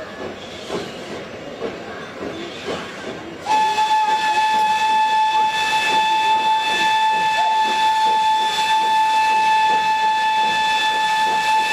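Steam locomotive's whistle blowing one long steady note that comes on suddenly about three and a half seconds in and holds; before it, people's voices.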